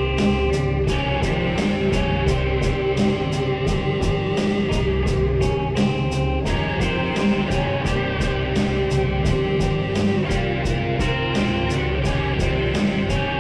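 Slowed-down, heavily effects-processed guitar rock music with sustained notes and a steady high tick about three times a second.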